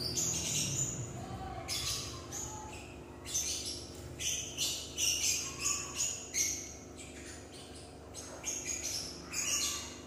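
A bird chirping in short, high-pitched calls, about a dozen of them in uneven bunches, with a steady low hum underneath.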